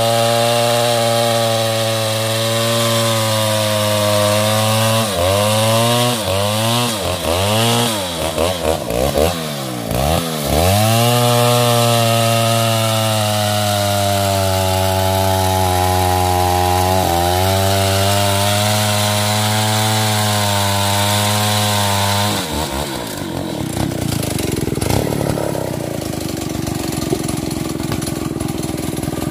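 Stihl MS 382 two-stroke chainsaw running at high revs in the cut, its pitch repeatedly dipping and recovering for several seconds as it bogs under load, then holding steady. Over the last several seconds the steady engine note gives way to a rougher, noisier sound.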